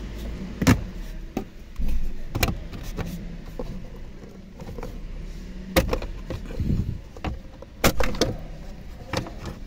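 Plastic instrument-cluster hood of a Toyota RAV4 being worked loose and pulled off by hand: several sharp clicks and knocks as its clips give and the trim strikes the dash, with softer rubbing of plastic between them.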